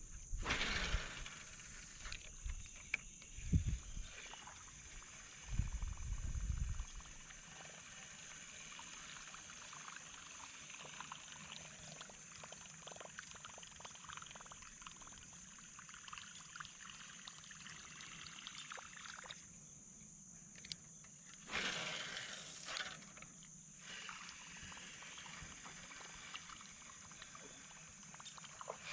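River water trickling and lapping, with a few dull low knocks in the first seconds and a short rush of noise about two-thirds of the way through.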